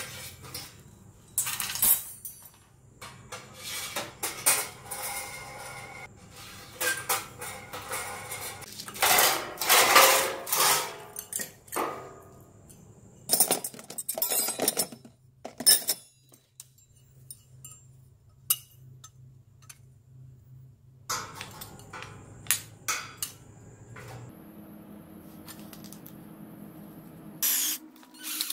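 Metal parts being handled: thin steel skewers and small steel brackets clink, rattle and clatter in irregular bursts over a faint steady low hum. Near the end a handheld rotary tool starts on a bracket clamped in a vise.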